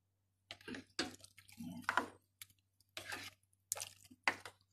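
A spoon stirring chopped vegetables in a pot with a little water: irregular short wet squishes and light clicks of the spoon against the vegetables and pot.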